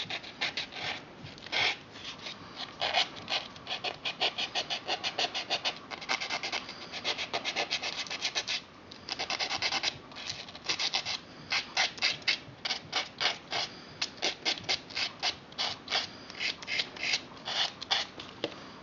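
A fingernail is filed on the abrasive side of a four-way nail buffer block in quick back-and-forth strokes, about three a second, in runs broken by brief pauses. The strokes are smoothing the sides of a Crazy Glue patch on the nail.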